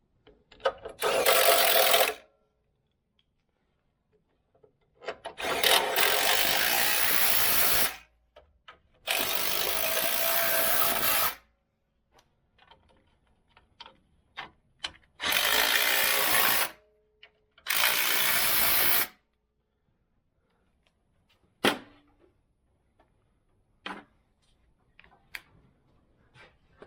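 A power tool run in five bursts of one to three seconds each, each starting and stopping abruptly, followed by a sharp click and a few light knocks.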